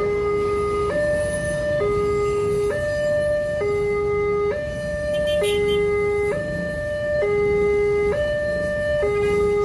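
Railway level-crossing warning alarm sounding a steady two-tone electronic hi-lo signal, switching pitch about every second, to warn that a train is crossing. Under it is the low rumble of a passenger train rolling through the crossing.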